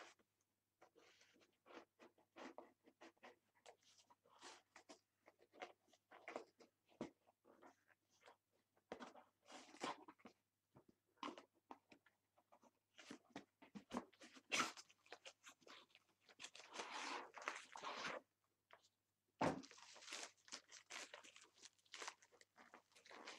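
Cardboard shipping box being opened and handled by hand: irregular crackling and scraping of cardboard flaps and packing, with one dull knock a few seconds before the end.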